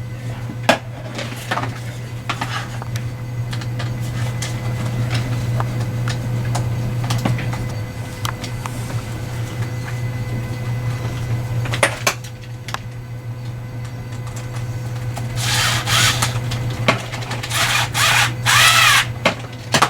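A small Phillips screw being driven with a hand screwdriver into a 3D-printed plastic holster: scattered clicks and scraping as it turns, then a louder squeaky grinding toward the end as the screw bites into the plastic.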